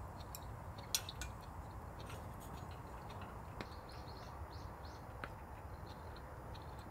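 A few light clinks of utensils against cookware, the sharpest about a second in, over a low steady background, with a run of short high chirps in the middle.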